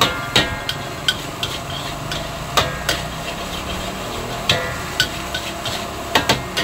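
Metal spatula knocking and scraping against an iron wok during stir-frying: about a dozen sharp clanks at uneven intervals, a few ringing briefly.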